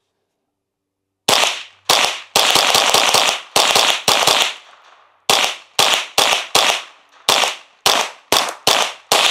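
Unsuppressed Ruger 10/22 semi-automatic .22 LR rifle fired rapidly: about twenty sharp shots, each with a short echo, in two quick strings with a pause of about a second between them.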